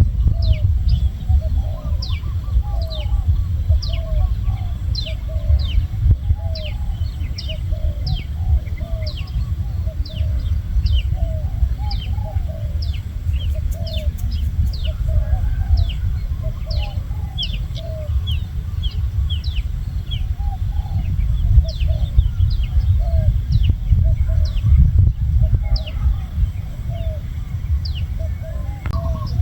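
Birds calling: a quick run of high, sharply falling chirps, about two a second, over a lower series of short repeated notes, with a steady low rumble underneath.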